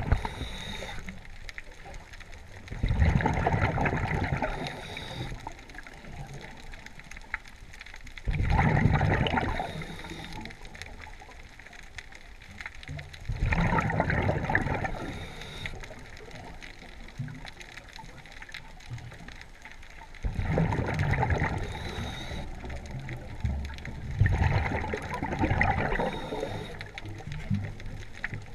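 Scuba diver's regulator breathing underwater: a bubbling rush of exhaled bubbles about every five to six seconds, with quieter inhalations between them.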